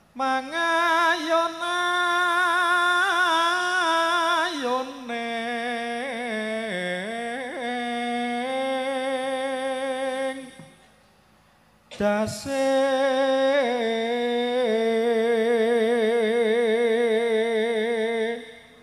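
A man chanting a Javanese sung prayer (puji sesanti) solo into a microphone, with no accompaniment. He sings in long drawn-out phrases of held notes that waver and slide, and pauses for about a second near the middle before starting a second phrase.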